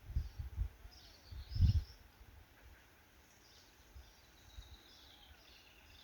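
Small birds chirping and calling. Low rumbling bumps on the microphone come in the first two seconds, the loudest about a second and a half in.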